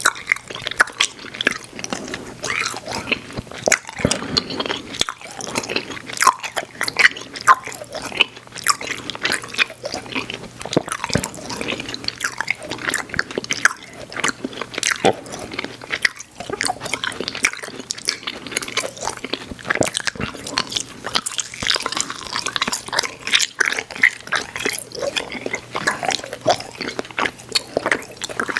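Close-miked chewing and biting of chewy Airheads Xtremes sour candy: wet, sticky mouth sounds with a continual run of small clicks.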